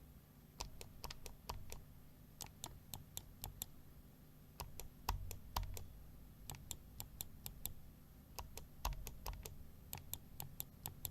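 Zebronics Phobos gaming mouse buttons clicking, sharp and quite noisy: quick clusters of clicks, sets of left and right clicks repeated about every two seconds.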